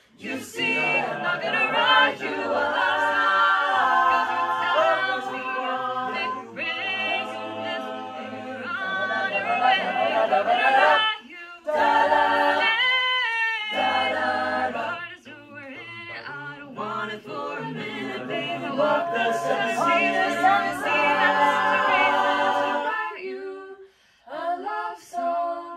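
An a cappella vocal group singing a song in close harmony, a low bass voice under the upper parts, with short breaks about 11 and 14 seconds in. The singing stops about 23 seconds in, followed by a few short voice sounds.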